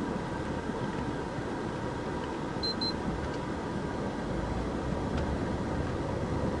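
Police patrol car cabin noise while driving: a steady engine and tyre rumble. Two short high beeps come in quick succession a little under three seconds in.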